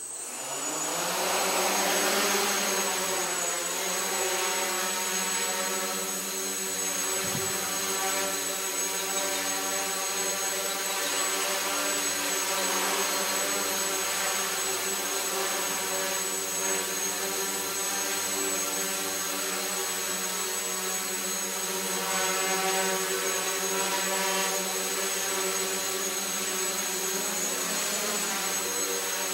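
Hexacopter's six electric motors and propellers spinning up, rising in pitch over the first couple of seconds, then a steady buzzing drone as it lifts off and hovers, the pitch wavering slightly, with a thin high whine over it.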